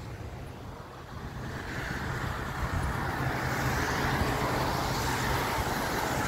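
Road traffic noise from cars passing on the street alongside, swelling louder about a second in and then holding steady.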